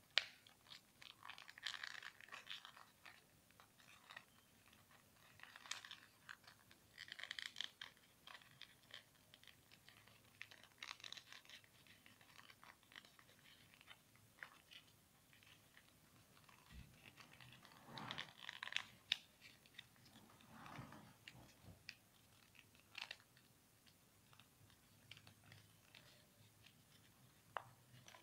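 A sheet of paper crinkling and rustling as fingers fold and crease it into an origami boat. The rustles come in short bursts every few seconds, with soft ticks between them.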